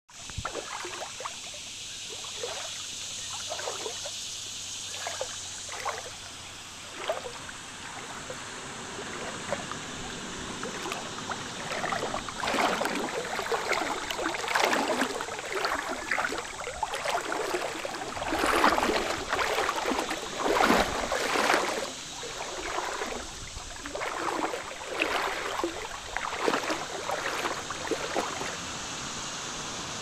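Shallow creek water trickling and gurgling over rock, with irregular little splashes that grow louder and busier about midway, over a steady high hiss.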